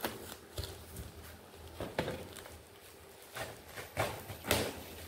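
Bubble-wrap packaging being handled and cut open with scissors: a run of irregular crinkles and clicks.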